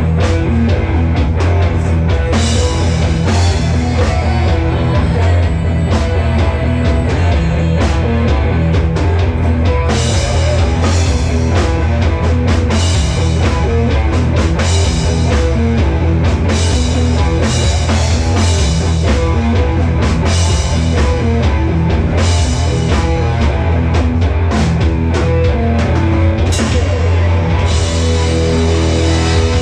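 Live rock band playing loud: electric guitars over a drum kit, with a steady driving beat.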